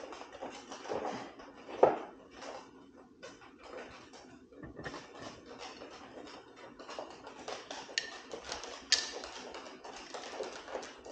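Small metallic clicks and clinks of screws and a hand tool as a case cover is screwed back onto an e-bike frame, with a louder knock about two seconds in and two sharp, briefly ringing clinks near the end.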